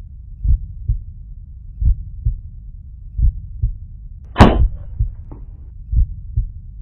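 A heartbeat sound effect, paired low thumps about every second and a half, with one sharp shot from a suppressed .22 Benjamin Marauder pellet pistol about four and a half seconds in, the loudest sound, followed by a brief ring.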